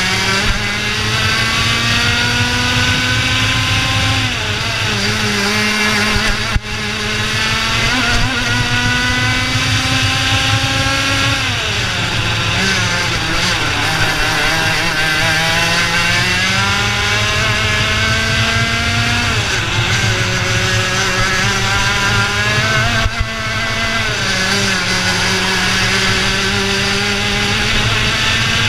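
IAME Leopard 125cc two-stroke kart engine at race speed. Its pitch climbs steadily as the kart accelerates and drops back sharply four times as it slows for corners, most deeply about halfway through. Heard from the driver's helmet-mounted camera, with wind rush underneath.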